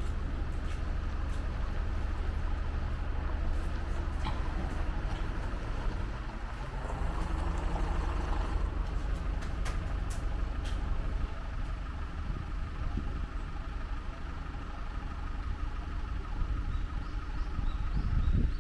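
Steady, unbroken roar of a large waterfall, heavy in the low end.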